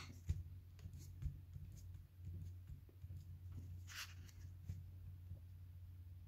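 A marker pen writing on paper: faint scratches and small taps of the tip, with one longer scratchy stroke about four seconds in, over a steady low hum.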